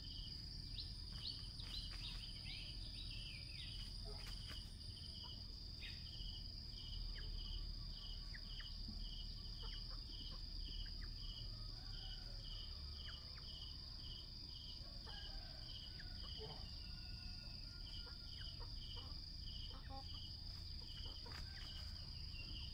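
Insects calling: a steady, high-pitched drone with a shorter chirp repeating about twice a second, over a low background rumble. Brief faint high calls come and go throughout.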